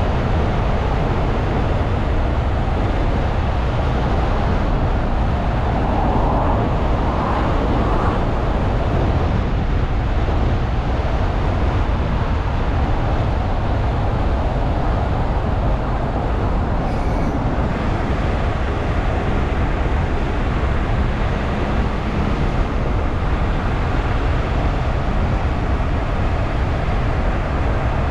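Steady road noise of a car being driven: tyre and engine rumble, heaviest in the low end, with a louder swell in the middle range about six to eight seconds in.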